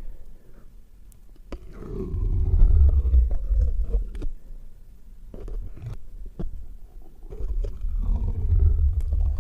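A man's stomach growling: two long, low, gurgling rumbles, the first starting about two seconds in and the second near the end.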